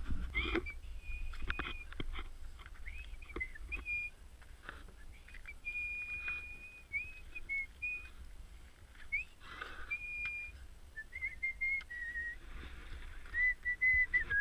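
A person whistling a tune: a string of held notes with small slides between them, dropping lower and getting louder near the end. Scattered crunches of footsteps in snow sound under it.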